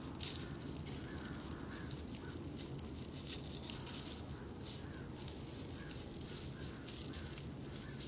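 Black-billed magpie chattering: irregular runs of short, harsh clicking notes, thickest a few seconds in, over a steady low rumble.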